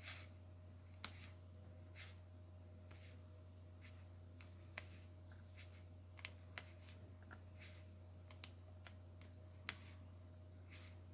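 Diamond painting drill pen picking up resin drills and pressing them onto the sticky canvas: faint, irregular small clicks and taps, over a steady low hum.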